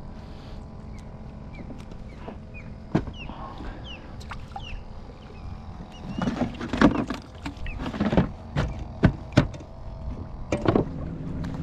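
Irregular knocks and clunks on a kayak as live bait and tackle are handled. They are bunched from about six seconds in, several of them sharp and loud.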